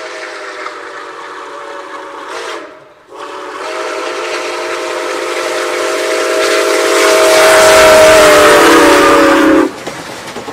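Steam locomotive whistle blowing a chord of several tones with hiss: a first blast breaks off about two and a half seconds in, then a long blast swells louder and stops abruptly near the end.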